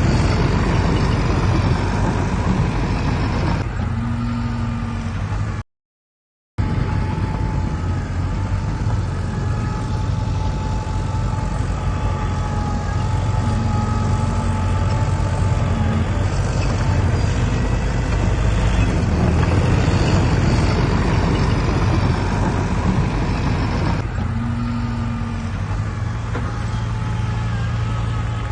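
Heavy construction machinery's diesel engine running steadily with a deep rumble. The sound drops to silence for under a second about six seconds in, then resumes.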